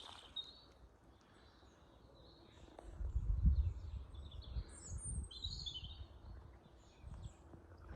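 Wild songbirds calling and singing: many short high chirps and warbles, busiest from about three seconds in. A low rumble rises under them about three seconds in and is loudest briefly.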